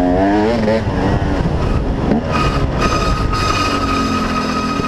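2008 KTM 300 XC-W two-stroke dirt bike engine revving with a wavering pitch, then the rear brake setting up a steady, high-pitched squeal from a little over two seconds in. The squeal comes from badly worn rear brake pads, which were down to nothing by the end of the ride.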